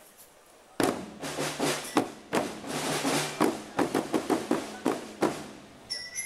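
Marching-band drums strike up about a second in with a run of irregular hits over a low tone. High, bell-like notes come in near the end.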